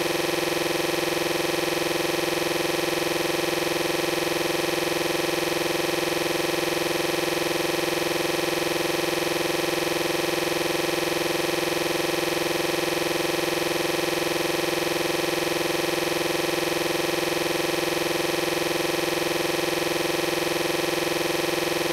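Steady, unchanging electronic drone of many stacked tones, the sound of corrupted digital audio in a broken video file.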